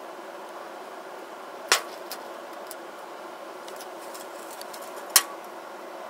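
Two sharp clicks about three and a half seconds apart, with a few faint ticks between them, over a steady hiss.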